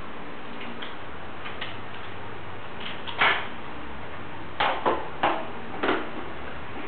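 Light clicking, like a small dog's claws on a tiled floor, then a run of five sharp knocks and clatters in the second half.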